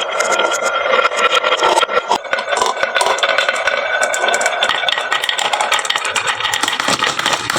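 Many glass marbles rolling and clattering down a wooden marble-run slope, a dense continuous rattle of small clicks as they knock against the wood and each other.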